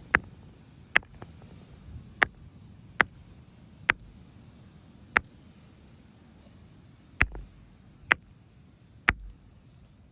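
Sharp, separate knocks of a hand-held rock striking, about nine blows at an uneven pace of roughly one a second.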